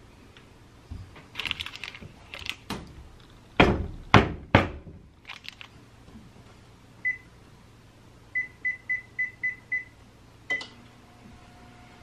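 Kitchen clatter and three heavy thumps on the counter. Then an oven's control panel beeps as it is set to 180 °C: one beep, a quick run of six evenly spaced beeps, and a last beep with a click.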